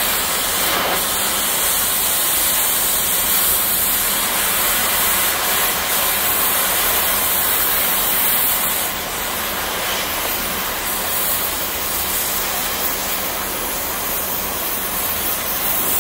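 Oxy-acetylene cutting torch hissing steadily as its cutting-oxygen jet burns through the weld holding a flange onto a steel pipe.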